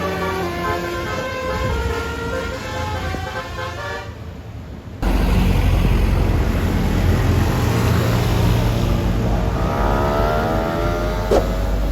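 Bus basuri horn playing a quick melody of stepping tones, fading out about four seconds in. Then the loud low rumble of a bus engine starts abruptly, its note rising near the end.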